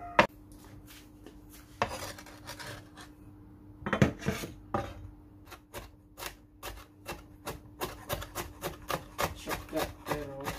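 Cleaver chopping bell pepper on a wooden cutting board: a run of quick knocks of the blade on the board, about three to four a second in the second half.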